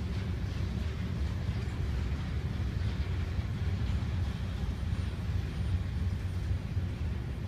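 Manifest freight train rolling past at a distance: a steady low rumble of its cars' wheels on the rails.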